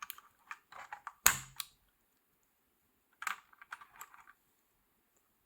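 Mechanical keyboard switches being pressed back into the keyboard plate: a string of small plastic clicks with one loud snap about a second in, a pause, then another cluster of clicks a little past three seconds.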